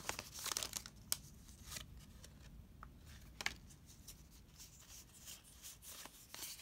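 Pokémon trading cards being slid out of an opened foil booster pack and handled, with a brief crinkle of the foil wrapper at the start, then faint scattered clicks and rustles of the card stock.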